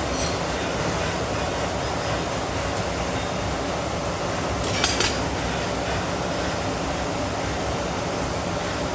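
A forge running with a steady, even rushing rumble, its fire heating the metal for forge welding. Two quick metallic clinks come close together about five seconds in.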